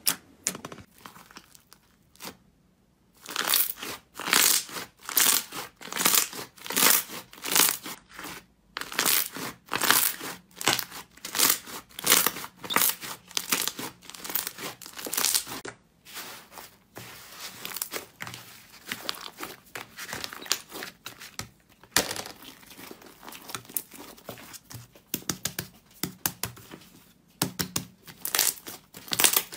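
Hands pressing, squeezing and stretching slime, giving sticky crackling and popping squishes in bursts of about one or two a second, with a brief pause about two seconds in.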